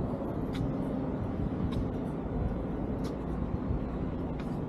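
Steady low outdoor background rumble, with a few faint clicks about half a second, one and three-quarter seconds and three seconds in.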